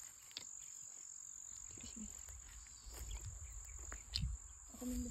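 Crickets chirring steadily in one even, high-pitched tone, over a low rumble. A few soft footsteps sound on cut grass, and a brief voice sound comes near the end.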